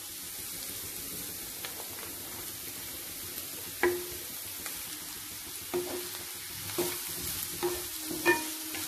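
Shredded cabbage sizzling steadily in oil in a non-stick kadai. From about four seconds in come a handful of sharp knocks and scrapes against the pan as carrot strips are added and stirred in with a spatula.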